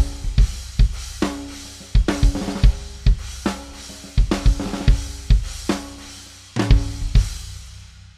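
A drum kit played as a beat of kick, snare and cymbal crashes, featuring a 16-inch, 906-gram Bosphorus raw hand-hammered crash prototype. The last hits land about seven seconds in, and the crash wash and drums ring out and fade.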